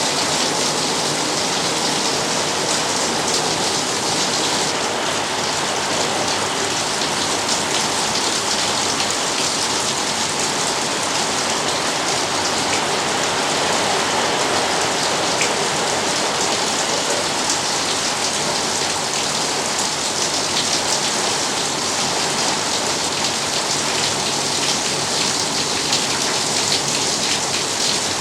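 Steady rain drumming on a corrugated iron shed roof: a dense, even patter of drops on the metal sheeting, with sharper individual drop ticks scattered through it.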